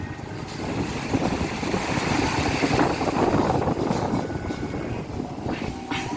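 Sea surf washing onto the shore at night: a steady rushing noise that swells about half a second in.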